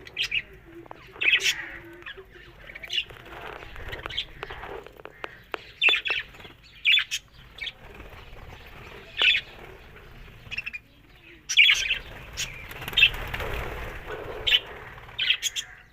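Pet parrots chirping and squawking: short, sharp calls repeated irregularly.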